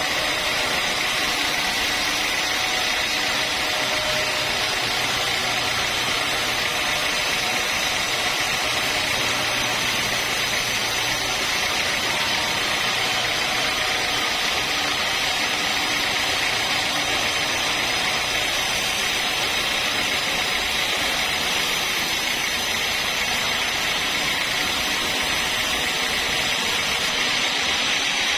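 Sawmill saw running steadily: a continuous, even machine noise with a faint steady whine.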